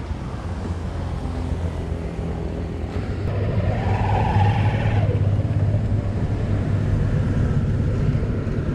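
Fuel pump dispensing petrol through the nozzle into a dirt bike's fuel tank, with a steady low hum throughout. A louder rush of flowing fuel comes in around the middle.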